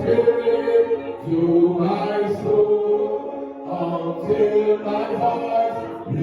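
Voices singing a gospel worship song together, in long held notes that run into one another.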